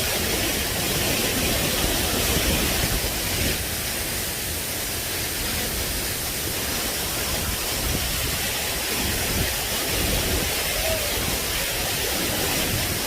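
Steady rushing roar of water pouring down a large man-made waterfall.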